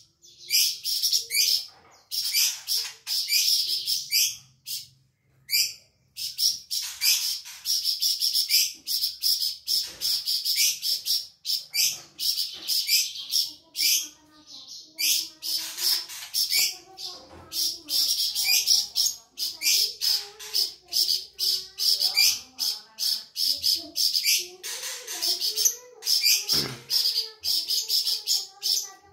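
A flamboyan songbird singing continuously, a rapid run of high, sharp chirps and twitters with only brief breaks, the pause longest a few seconds in. A fainter, lower wavering sound runs under the song in the second half.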